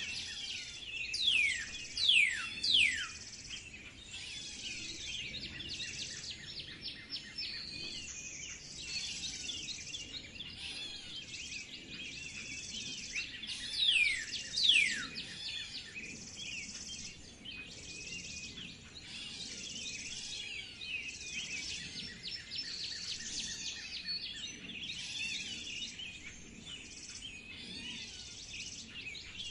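A chorus of songbirds chirping and trilling without pause. Loud whistled calls that slide steeply down in pitch cut through three times in the first few seconds and twice more about halfway through.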